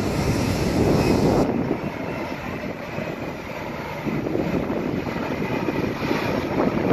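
Jet engines of an Airbus airliner running while it stands at the runway end, a steady rumble that is a little louder in the first second and a half.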